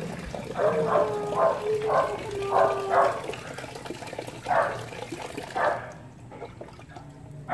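Tap water running into a plastic basin, with a puppy giving a string of short yelps and whimpers as it is bathed. The running water stops about six seconds in.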